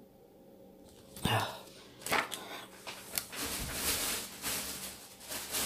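Paper pads and crinkly packaging being handled and rustled, with a knock about a second in as a pad is put down, then more crackling and rustling.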